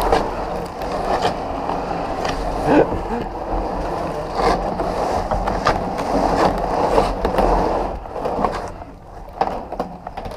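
A large hollow tube rolling over the ground with a person inside, a continuous rumble with knocks and clatters that eases off near the end.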